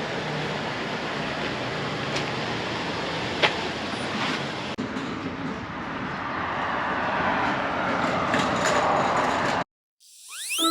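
Steady outdoor background noise, like passing traffic, with a few light clicks. Near the end it cuts out briefly, and a rising swoosh leads into music.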